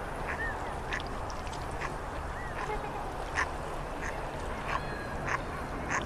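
A flock of waterfowl calling: short honking and quacking calls at irregular intervals, over a steady background rush.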